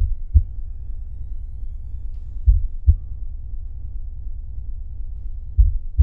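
Low rumbling drone with heartbeat-like double thumps, one pair about every three seconds.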